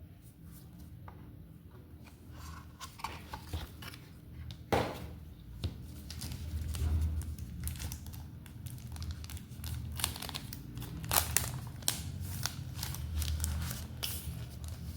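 Phone packaging being handled and torn open: irregular crinkling, tearing and small clicks, with a sharper knock about five seconds in and another near eleven seconds, over a steady low hum.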